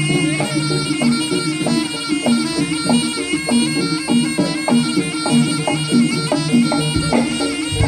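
Javanese jaranan ensemble music: a nasal reed melody over a held drone, with drum strikes in a steady beat of about three a second.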